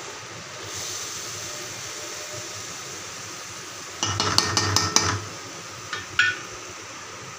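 A metal spoon clinking and scraping against a metal cooking pot in a quick cluster of clatters about four seconds in, then two single clinks about a second later, over a faint steady hiss.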